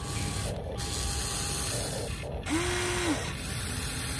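Huina 1593 RC excavator's electric gear motors whirring as the boom and bucket move, with one short motor whine that rises, holds and falls about two and a half seconds in.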